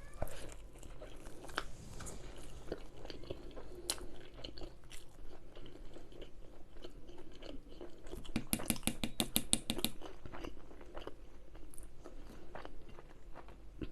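Close-miked chewing and biting of food, mouth sounds with small wet clicks, and a quick run of crunchy chews about eight and a half seconds in.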